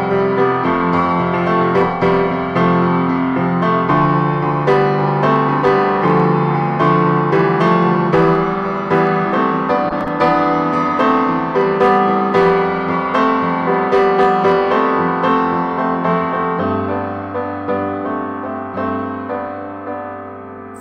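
Solo piano playing an unhurried instrumental passage of evenly struck notes and chords, slowly getting quieter over the last few seconds.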